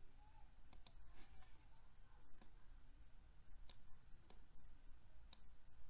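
A handful of faint, irregular clicks from tapping and drawing on a slide with a digital pen tool, over a low steady hum.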